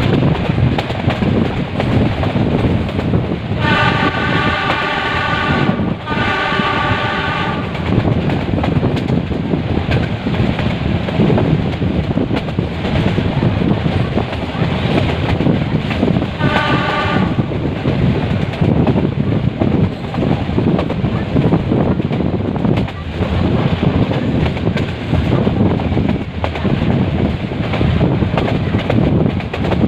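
Metre-gauge passenger train running with a steady rumble of wheels on the track; the locomotive's horn sounds in two long blasts back to back about four seconds in, then once more briefly about sixteen seconds in.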